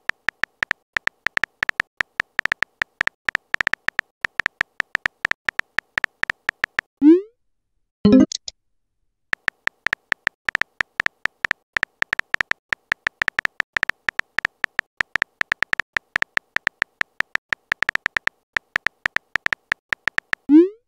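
Phone keyboard typing sound effects: quick, irregular key clicks, each with a short beep-like tone, in two long runs of typing. Each run ends with a short rising swoop as the message is sent, and a louder sweeping chirp sounds about eight seconds in.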